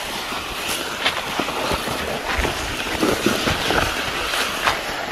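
Plastic deer-drag sled loaded with a deer sliding and scraping over grass: a continuous rustling hiss broken by irregular crackles and knocks.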